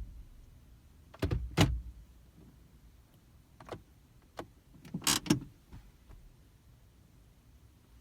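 A few sharp clicks and knocks: a pair about a second in, single quieter clicks in the middle, and a close cluster about five seconds in.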